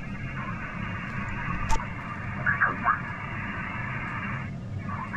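ICOM IC-7610 shortwave transceiver on the 10-meter band putting out steady receiver static hiss, with faint snatches of a distant station's voice a little past halfway. A single click about a second and a half in, and the hiss briefly thins out near the end.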